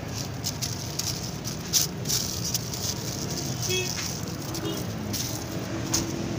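Paper crinkling and rustling in many quick, irregular crackles as a shawarma roll is folded and wrapped in a paper sheet by hand.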